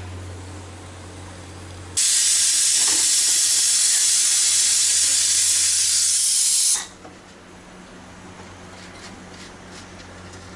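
Stovetop pressure cooker venting: a loud, steady hiss of escaping steam starts suddenly about two seconds in and cuts off after about five seconds. It is the sign that the cooker has come up to pressure.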